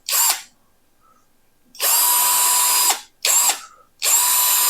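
Ralli Wolf RCD12V 12-volt cordless drill driver spinning in short trigger pulls: a quick blip, then two steady whining runs of about a second each with another quick blip between them.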